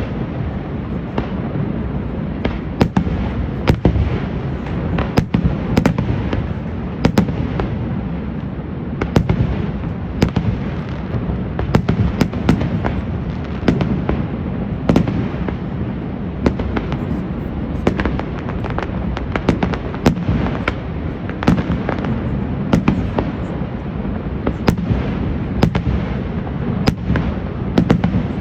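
Fireworks display: a steady run of sharp bangs from bursting aerial shells, one or two a second at irregular spacing, over a continuous low rumble.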